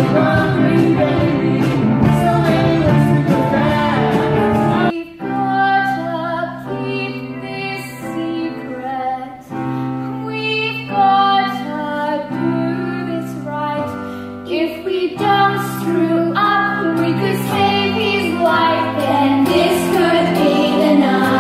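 Live musical-theatre singing with band accompaniment. About five seconds in it cuts abruptly to a group of children singing together over the accompaniment.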